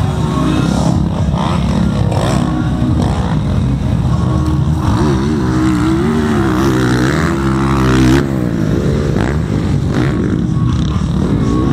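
Motocross motorcycle engines revving, their pitch rising and falling again and again for a few seconds as the bikes go by about halfway through, then dropping away suddenly. A steady low rumble runs underneath.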